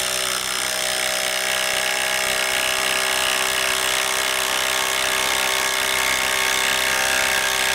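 Ryobi P239 brushless impact driver hammering steadily under load as it drives a 5/8 by 3-inch lag bolt into a wooden block, running without a break.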